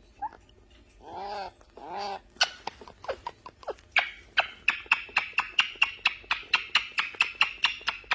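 Parrot vocalising: two short calls that rise and fall in pitch, then a fast, even run of sharp clicks, about four a second.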